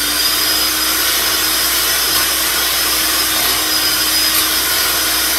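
Handheld electric mixer running steadily with an even motor whine, its beaters whipping a pot of mashed potatoes.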